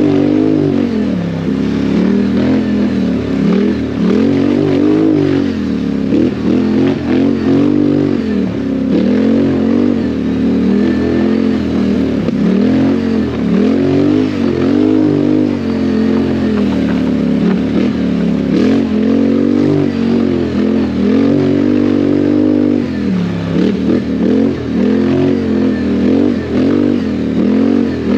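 ATV engine revved hard and backed off over and over during off-road riding, its pitch rising and falling about every second or two.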